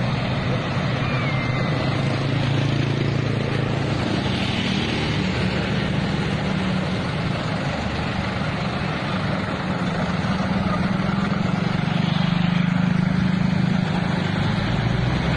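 A steady mechanical drone: an even hiss over a low hum that holds its level, like a running vehicle engine or motor.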